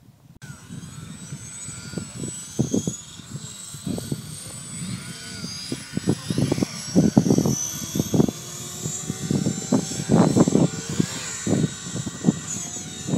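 Align T-Rex 550 electric RC helicopter spooling up and lifting off: a high whine starts about half a second in and rises while the rotor sound grows louder through the flight, over an uneven low buffeting.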